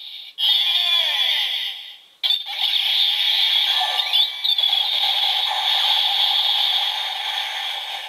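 Kamen Rider Build DX Build Driver toy belt playing its electronic transformation sound effects through its small speaker, with the Spider and Refrigerator Full Bottles inserted. It is a dense, sustained electronic whoosh with sweeping tones, broken briefly about two seconds in, and it cuts off at the very end.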